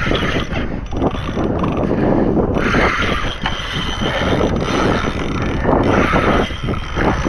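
Spinning reel being cranked hard in spurts, its gears whirring as line is wound in against a big fish pulling on the bent rod.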